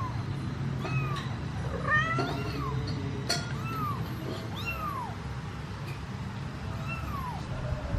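Kitten meowing again and again in short, high-pitched calls that rise and fall, sometimes two in quick succession, over a steady low hum.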